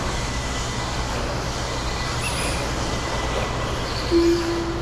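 Steady running noise of electric RC stadium trucks racing on an indoor dirt track, over a low hum. About four seconds in, a short single-pitched tone is the loudest sound.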